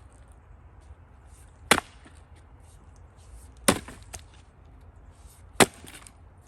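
Axe blows into a firewood round as it is hand-split: three sharp chops about two seconds apart.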